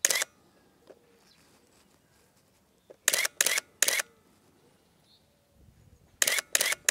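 Nikon F4 35mm film SLR with the MB-21 battery pack firing short bursts in continuous mode, its shutter, mirror and motor drive clattering at 5.7 frames per second. One brief burst comes at the start, another about three seconds in, and a third begins near the end.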